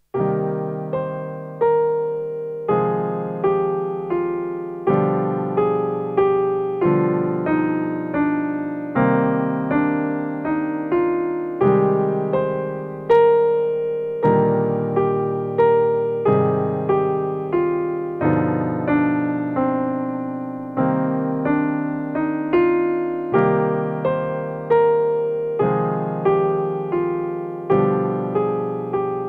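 Solo piano music starting out of silence: single notes and chords, each struck and left to ring and fade.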